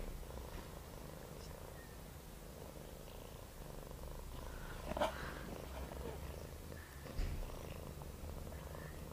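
Mother cat purring steadily in a low rumble while newborn kittens nurse at her belly, with one brief higher-pitched squeak about five seconds in.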